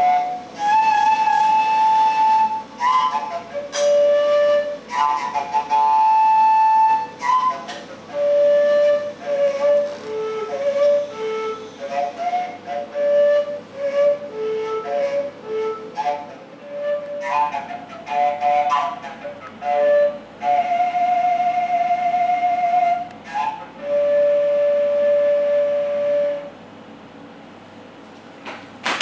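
A solo flute-like wind instrument playing a single melody line of long held notes and short quick runs, with one long wavering note about three quarters of the way through. The playing ends a few seconds before the end.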